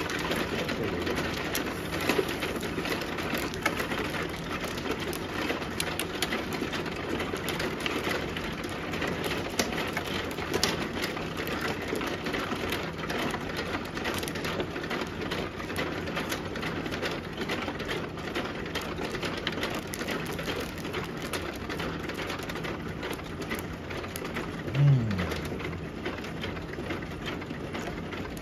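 Mahjong tiles clicking and clacking on an automatic mahjong table's felt top as players draw and discard, a steady run of small clicks. About 25 seconds in there is a brief low falling sound, the loudest moment.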